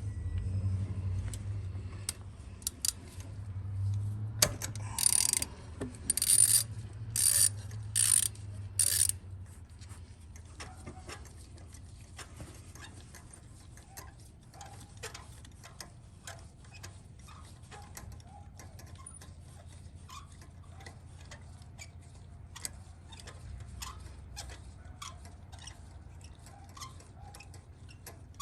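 Ratchet wrench turning a magnetic spark plug socket to loosen and back out a spark plug from a Lexus 1UR-FE V8: five louder ratcheting strokes about a second apart, then a long run of faint, quick clicking ticks.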